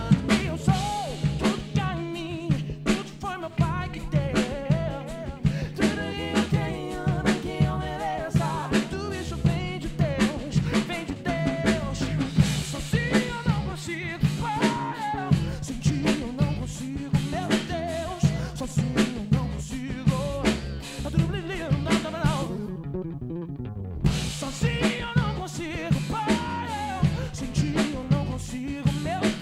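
Acoustic drum kit played along to a recorded Brazilian gospel song with a singing voice: a steady snare and bass drum groove under the vocal line. About three quarters of the way through, the drums and the high end drop out for about a second before the groove comes back in.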